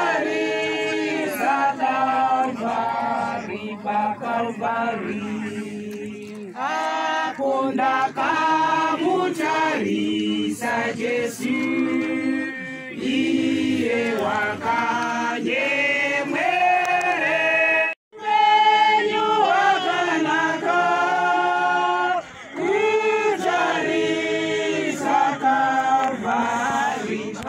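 A group of mourners singing a hymn together without instruments, with men's and women's voices. The singing breaks off for a moment about two-thirds of the way through.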